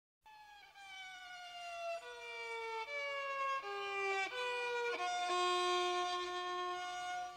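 Experimental music starting after a moment of silence: a single pitched instrument with a bright, string-like tone plays a series of short notes, each sliding down in pitch. It grows louder and settles on a long held note near the end.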